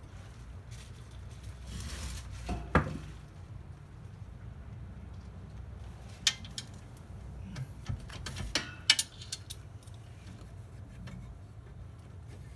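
Metal tools and hardware clinking and clanking while a rear sway bar's bolts and brackets are being fitted. There are a few sharp knocks, one about three seconds in and a cluster later on, the loudest near the end.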